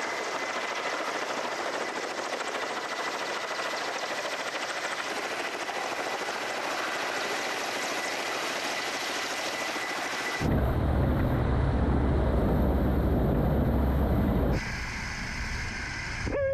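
Kamov Ka-32 coaxial-rotor firefighting helicopter hovering low over water with its snorkel dipped in to draw water, heard as a steady rush of rotor noise and downwash. About ten seconds in it turns louder with a deep rumble, which cuts off abruptly about four seconds later to a quieter, thinner sound.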